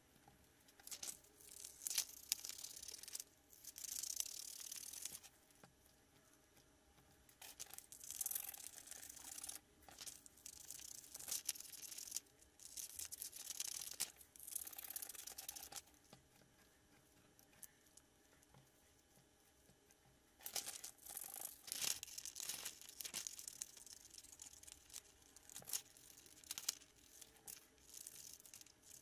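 Scissors snipping through a paper pattern sheet, in runs of cuts, with the paper rustling as it is turned and handled. There is a pause of a few seconds past the middle.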